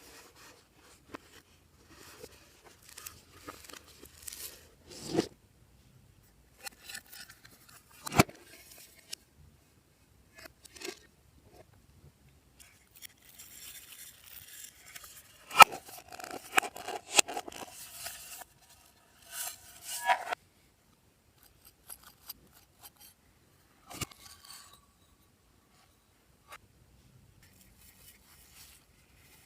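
Glossy slime being squeezed and mixed by hand, giving irregular sticky clicks, pops and crackles with short quiet gaps between them. The densest, loudest crackling comes a little past the middle.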